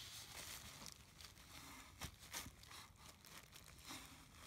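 Near silence with faint rustling and rubbing of a microfibre towel wiping degreaser-softened grime off a part, with a few soft small clicks.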